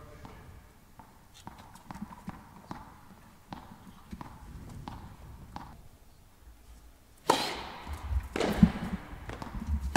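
Tennis ball and racket sounds in an indoor hall: sharp strikes and bounces about half a second to a second apart, with footsteps, echoing faintly. About seven seconds in, a sudden loud burst of cheering and shouting breaks out and runs on.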